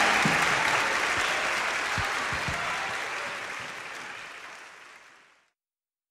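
Audience applauding, fading out gradually and then cut off to silence about five seconds in.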